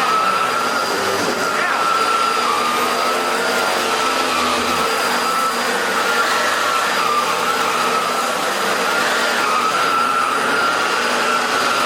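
Eureka Floor Rover upright bagless vacuum cleaner running steadily on the floor, a continuous motor whine with a slight waver in pitch over the rush of suction, as it picks up large debris.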